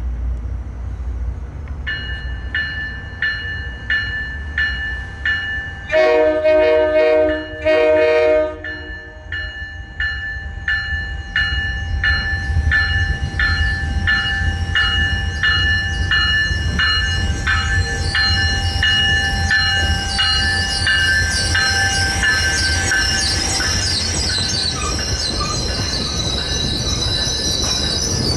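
An approaching train: a warning bell rings about twice a second, the train's horn gives two long blasts a couple of seconds apart, and then the wheels squeal and the rails rumble louder as the train draws near.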